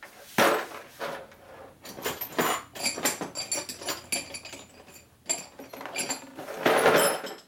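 Small metal parts clinking and rattling as they are handled and rummaged through by hand, with two louder rustling scrapes, one about half a second in and one near the end.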